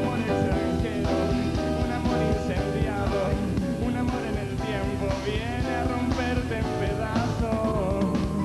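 A rock song playing between sung lines: a band with guitar, bass and drums, and a wavering, bending lead melody on top.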